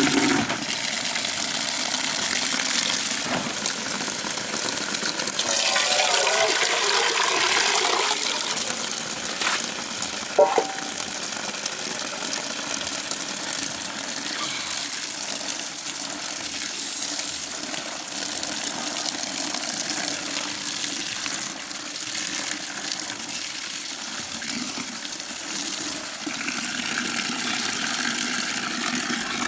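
A steady stream of water pouring from an outdoor pipe and splashing into a plastic bucket as leafy greens are rinsed in it. There is louder splashing for a couple of seconds about six seconds in, and a brief clink about ten seconds in.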